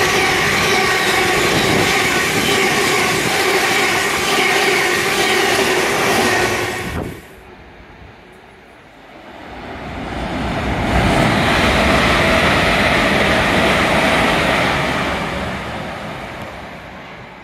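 Great Western Railway Hitachi Intercity Express Train passing at speed, with a loud rush of wheel and running noise and steady whining tones. The noise cuts off sharply about seven seconds in. A few seconds later a second run of train noise builds up and then fades away.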